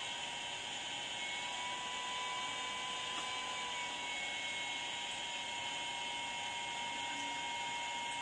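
Steady whir and hiss with a thin, constant high tone from an infrared BGA rework station running while it reflows a MacBook Pro's Nvidia GPU.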